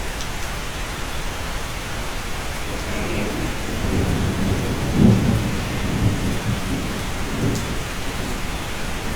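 Steady rain heard from inside a cabin, with a low roll of thunder that builds about three seconds in, peaks in the middle and dies away near the end.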